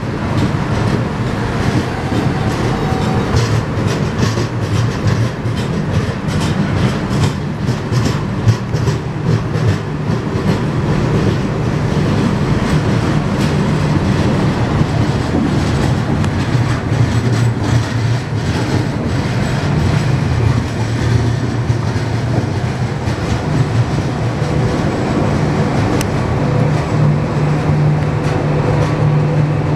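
Passenger express train rolling through a station as it brakes: wheels clattering over rail joints above a steady low rumble. The clatter is busiest over the first several seconds, and the rumble settles into a smoother drone toward the end.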